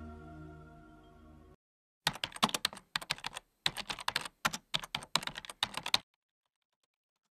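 Soft ambient music fades out in the first second and a half. About half a second later comes computer keyboard typing: quick runs of key clicks with short pauses, lasting about four seconds and then stopping.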